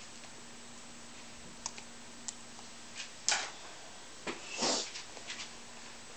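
Scattered light rustles, swishes and small taps of a cat playing with a feather toy, the longest rustle about two-thirds of the way in, over a steady low hum.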